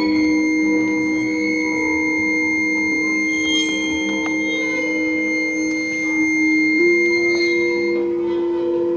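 Live music from a small group of saxophone, hollow-body electric guitar, violin and double bass, built from long held tones. A low note is held for several seconds and steps up slightly about seven seconds in, with a thin high tone above it that stops near the end.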